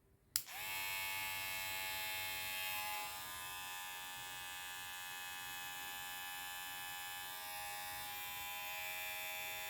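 Kemei KM-2293 hair trimmer switched on with a click, then its motor and blade running with a steady buzz.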